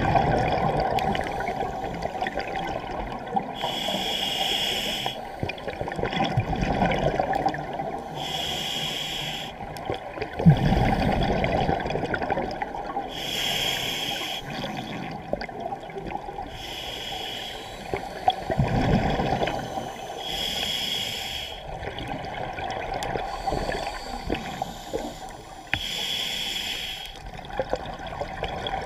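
Scuba diver's breathing through a regulator, heard underwater: a hiss about a second long every four to five seconds, with low rumbling swells between the hisses.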